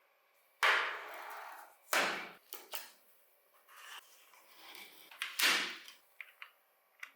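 Several short scraping or rubbing strokes, the first and last the loudest, then a few light clicks and taps near the end, from small parts of a diecast model car being worked on by hand.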